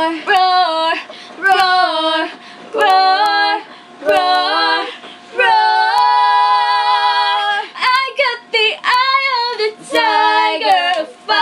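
A female voice singing a pop song solo, in short phrases with one long held note in the middle.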